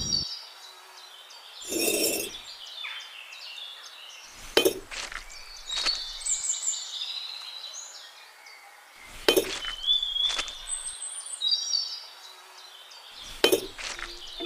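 Sharp clinks of small hard bricks knocked or set down against each other, about four over the stretch, with a softer scrape about two seconds in. Birds chirp in the background.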